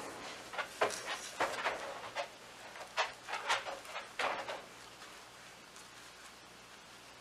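Hands digging into and pressing down potting soil around a tomato seedling: a string of short, gritty rustles and scrapes for about the first four and a half seconds, then only faint rustling.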